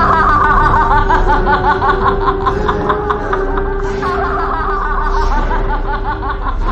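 A woman's long, theatrical villain laugh, a rapid run of 'ha-ha' pulses, over a single steady held note of background music that stops shortly before the end.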